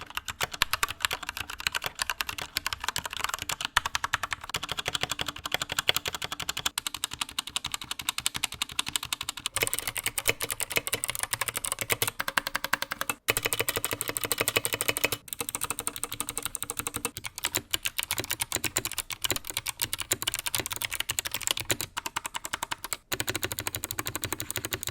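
Typing sound test on an Akko 3068 65% mechanical keyboard with Cherry MX Red linear switches, PBT keycaps and pre-lubed stabilizers: a fast, continuous run of keystrokes with a few brief pauses.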